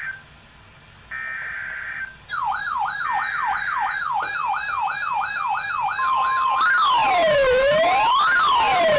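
Emergency Alert System end-of-message data bursts: short, harsh two-tone digital squawks, about a second each, sent one after another with a brief gap. A fast electronic yelp siren starts about two seconds in, and near the end it gives way to a slower, louder wailing siren sweep over a steady tone.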